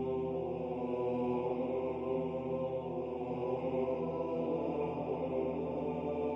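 Background music of sustained, droning chant-like tones, held steady with no breaks.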